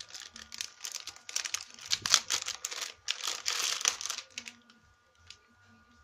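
Handling noise from hands fiddling with a small plastic USB adapter: rustling and crinkling with quick sharp clicks, which stops about four seconds in.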